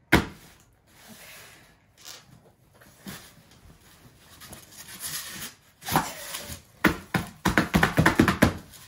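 A cardboard box and its packaging being handled and opened by hand. A sharp knock at the start, then scraping and rustling, and a quick run of clicks and knocks near the end.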